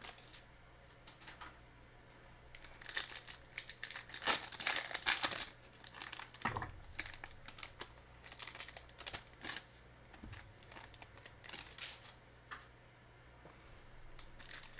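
Foil trading-card pack wrappers crinkling and tearing as packs are ripped open by hand, in irregular spells of crackling with short pauses between.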